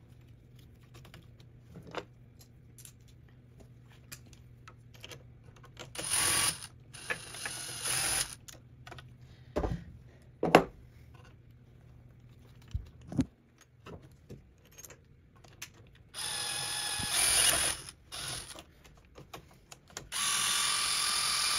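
DeWalt cordless drill driving the bolts that hold a CNC stepper motor to its mount, running in three short bursts. Clicks and knocks of parts and tools come between the bursts, one sharp knock the loudest.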